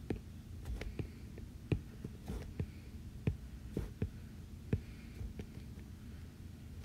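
A stylus tip tapping on an iPad's glass screen as sketch strokes are drawn: a dozen or so light, irregularly spaced taps over a low steady hum.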